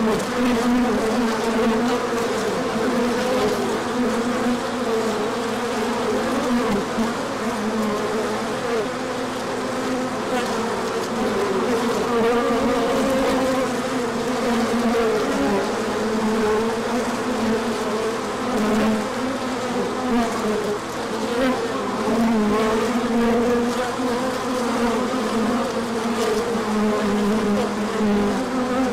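Many honey bees buzzing around their hives, a loud, steady drone of wingbeats that rises and falls slightly without a break.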